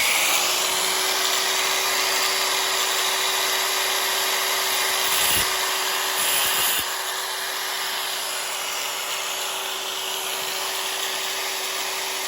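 Angle grinder running with its disc cutting a slot into the head of a stripped screw. A steady motor whine sits under a grinding hiss, which drops a little in level about seven seconds in.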